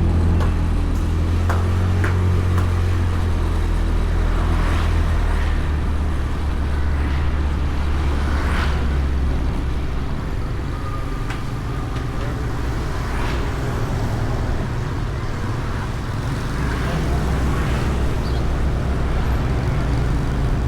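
Honda Beat scooter's small single-cylinder engine running steadily while under way, with continuous road and wind noise on the bike-mounted camera. The sound eases slightly through the middle and builds again near the end.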